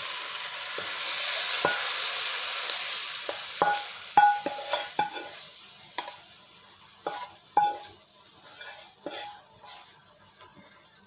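Leftover oil sizzling in a non-stick frying pan just taken off the heat, the sizzle fading away over the first few seconds as the pan cools. Then a run of sharp clinks and knocks on the pan, some ringing briefly.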